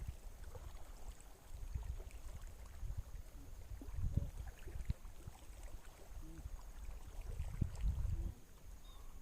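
Low, gusting rumble of wind on an outdoor microphone, swelling around four seconds in and again near the end, with scattered faint knocks and a thin steady high-pitched hiss.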